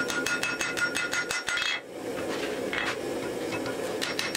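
Hand hammer striking a red-hot axe head on an anvil, the anvil ringing with each blow. A quick run of blows, about five a second, stops a little under two seconds in. After a pause the blows start again near the end.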